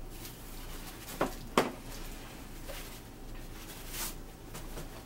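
Quiet room with light handling knocks: two sharp clicks a little over a second in, then a softer bump about four seconds in as a white plastic chair is moved.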